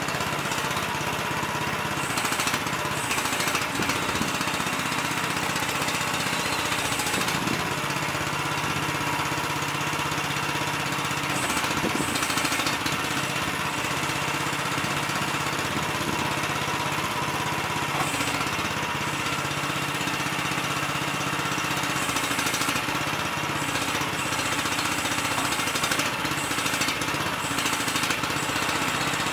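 Engine of a Miva VA13C mini excavator running steadily as the boom and arm are worked, its note shifting briefly a few times.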